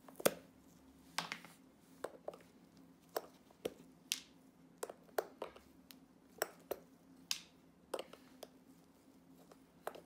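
Metal pincers gripping and prying at the heel of a leather shoe. They make a series of sharp, irregular clicks and snaps, roughly one to two a second.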